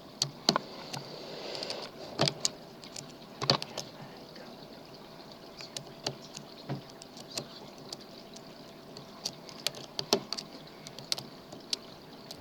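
A metal lock pick and tension wrench working in a pin tumbler lock: irregular sharp clicks and light taps as the pins are lifted and set, a few of them louder.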